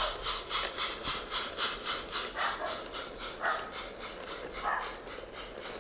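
Battery-powered garden-railway steam locomotive hauling loaded sand hopper wagons, giving a steady chuffing beat at about four chuffs a second that fades a little near the end. A dog barks three times in the background, about a second apart.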